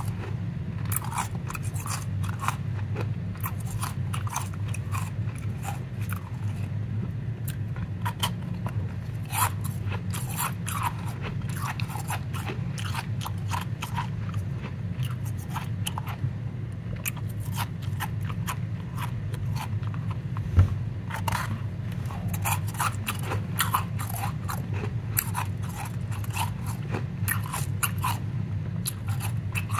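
Powdery ice crunching and crackling as gloved hands squeeze and crumble a packed lump of it, a dense run of small irregular crunches over a low steady hum. One louder knock about two-thirds of the way through.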